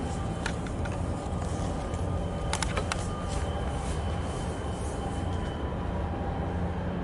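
Low steady rumble of a large container ship's engines as it comes into harbour, with a faint steady whine over it. A few sharp clicks sound about half a second in and again near three seconds.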